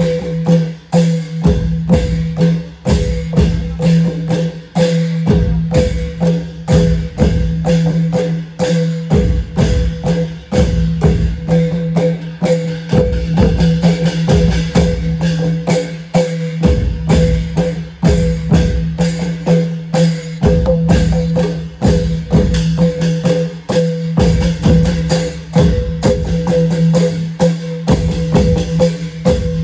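Isan klong yao long-drum ensemble playing a fast, even rhythm of dense drum strokes with bright clicking percussion, over a steady low tone.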